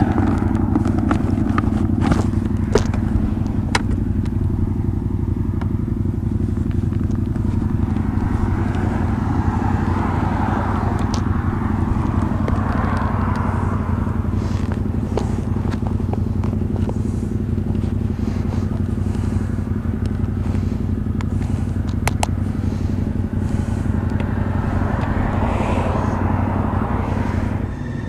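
Motorcycle engine running at a steady speed, holding one unchanging note over road and wind noise.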